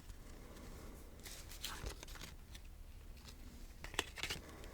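Football trading cards and their pack being handled: faint scattered light taps, clicks and rustles, a little louder about four seconds in.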